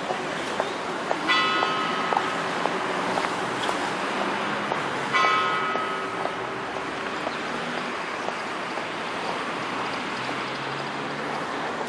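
A bell strikes twice, about four seconds apart, each stroke ringing out and fading slowly, over the steady noise of street traffic.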